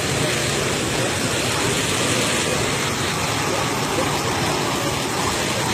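Waterfall: a steady, loud rush of falling water with no break or change.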